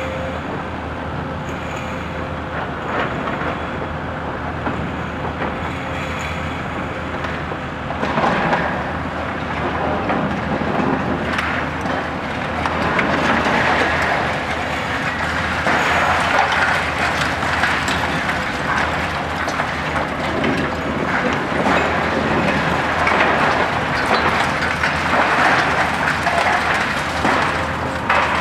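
Hitachi ZX 870-3 high-reach demolition excavator's diesel engine running steadily under load. From about eight seconds in, its demolition attachment breaks concrete off the building, and irregular crunching and clattering of falling concrete debris comes over the engine.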